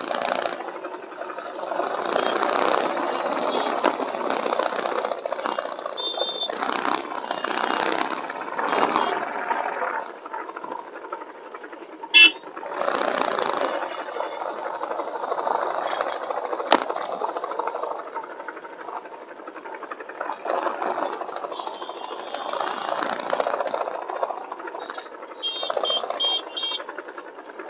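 Motorcycle riding slowly through dense city traffic: its engine and the surrounding traffic noise rising and falling, with a short, loud, sharp sound about twelve seconds in.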